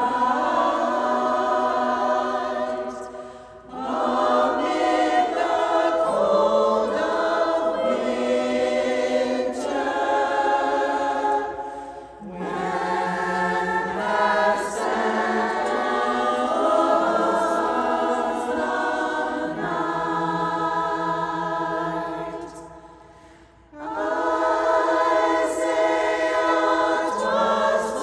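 Barbershop-style chorus singing a cappella in close harmony, holding chords phrase by phrase, with two short breaks between phrases about 3.5 and 23 seconds in.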